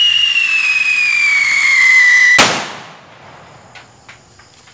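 A 4sure whistle bomb firework in flight, giving a loud whistle that falls steadily in pitch. About two and a half seconds in, it ends in a sharp bang that echoes away.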